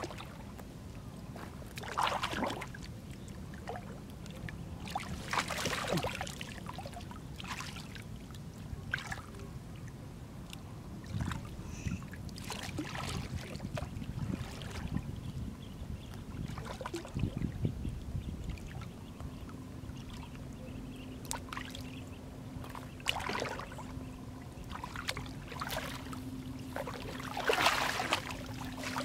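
Irregular splashing and sloshing of shallow muddy water as hands grope in it for fish, with a louder splash near the end as a wet cast net is pulled up out of the water.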